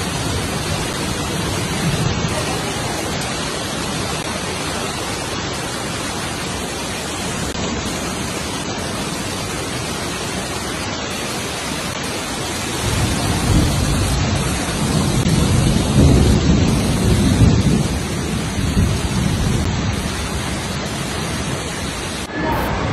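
Heavy rain and fast floodwater rushing down a flooded street, a steady dense noise. About halfway through a louder low rumble swells for several seconds, and the sound changes abruptly near the end.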